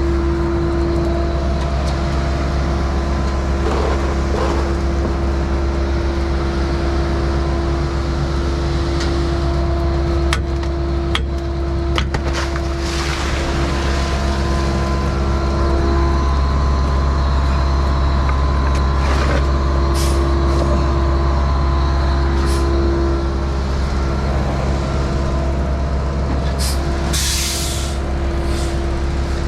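Heavy diesel machinery of a concrete pumping setup running steadily: a low engine drone with a held whine above it and scattered clanks. A short burst of air hiss comes about two seconds from the end.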